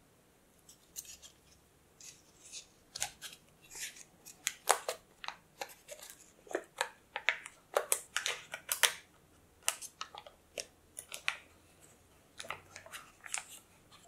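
Foil-lined paper wrapper of a butter block crinkling and rustling as it is peeled open and folded back by hand, in many short, irregular crackles.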